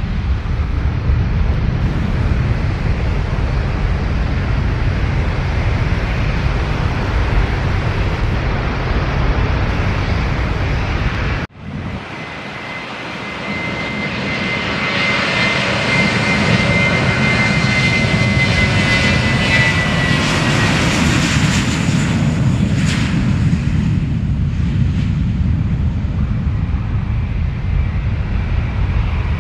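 A steady low rumble, broken off suddenly about eleven seconds in. Then a jet airliner's engines build up loud, with a high steady whine over the roar for several seconds, as the plane passes close on take-off, and the sound eases off near the end.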